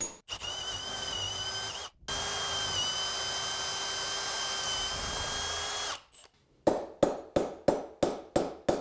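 Cordless drill boring out the old wooden handle stub inside a vintage axe head's eye, running steadily in two runs, a short one then a longer one of about four seconds, with a brief stop between. Near the end, a hammer strikes a steel punch on the axe head about three times a second.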